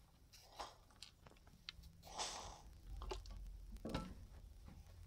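Faint handling sounds of a fabric sleeve band being folded over by hand: scattered small clicks, with a brief rustle about two seconds in.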